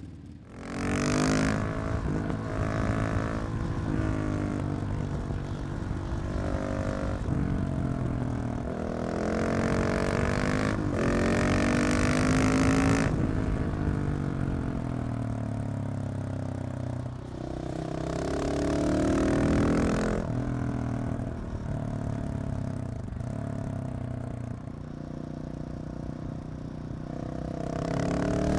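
KTM 690 SMC R's single-cylinder engine through a LeoVince exhaust with the catalytic converter removed, being ridden: the revs rise and fall over and over as it accelerates, changes gear and slows.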